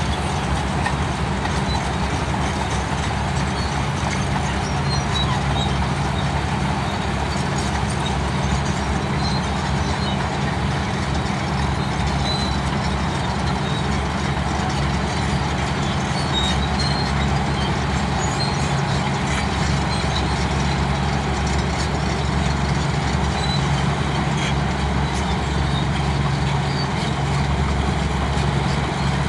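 Bulldozer's heavy diesel engine running steadily, a low even drone, with faint scattered ticks above it.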